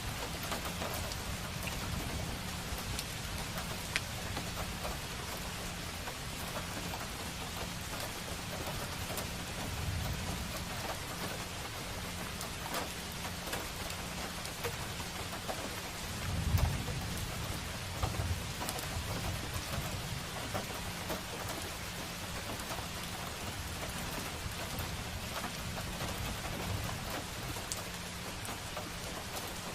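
Steady rain falling on a street, an even hiss of many drops. A low rumble swells up briefly about a third of the way in and more strongly just past the middle.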